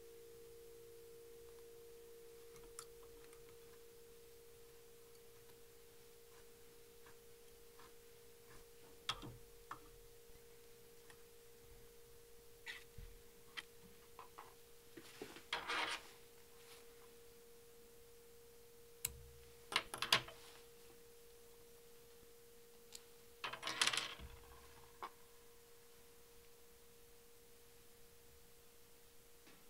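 Light rubbing and clicking of fingers and thread as a marabou feather is wrapped and stroked back on a fly held in a tying vise, with a few louder scrapes in the middle. A steady faint hum runs underneath.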